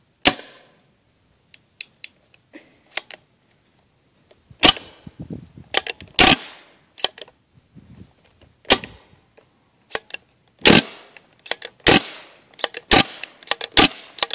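CO2-powered paintball marker firing about a dozen irregularly spaced shots, some in quick pairs, with fainter clicks between them; the CO2 supply is running low.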